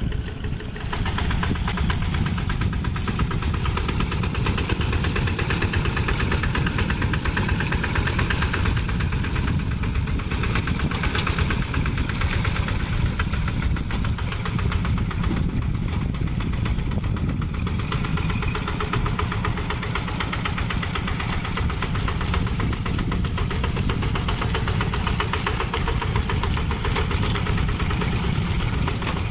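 A two-wheel hand tractor's single-cylinder diesel engine runs steadily under load as it pulls a levelling board through flooded paddy mud.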